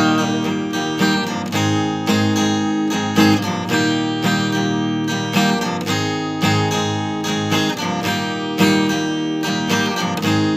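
Instrumental passage of a song: strummed acoustic guitar chords in a steady rhythm, without singing.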